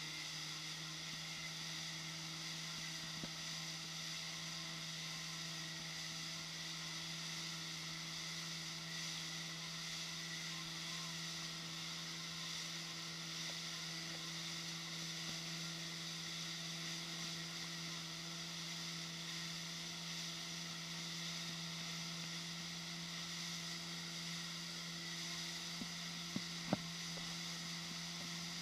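Motorboat engine running at steady towing speed, a constant low drone with a hiss of wake and wind over it. A couple of short clicks come near the end.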